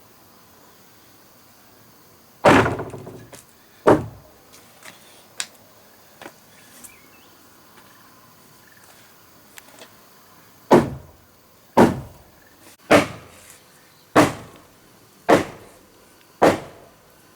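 Heavy blows struck on wood, each a sharp knock with a short ringing tail: two single blows, then a run of six about a second apart near the end.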